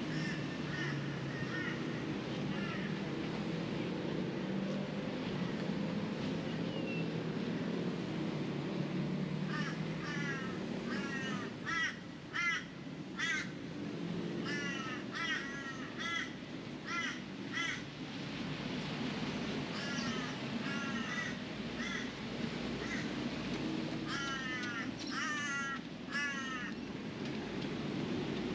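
A bird calling in runs of short, quick, repeated calls, several runs from about a third of the way in, over a steady low background hum.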